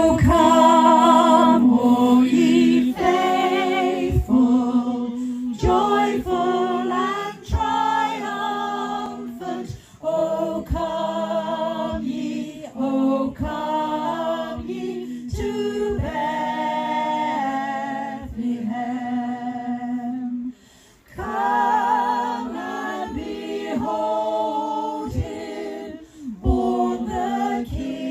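A small group of carol singers singing a Christmas carol a cappella, in held notes with vibrato and short breaks between phrases, including a clear pause about twenty seconds in.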